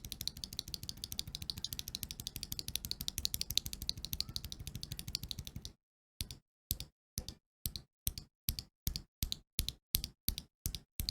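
Typing on a mechanical keyboard fitted with stock, unlubricated Holy Panda X tactile switches: a rapid run of clattering keystrokes, then from about six seconds in, about a dozen single key presses a little under half a second apart with dead silence between. The stock switches sound very scratchy.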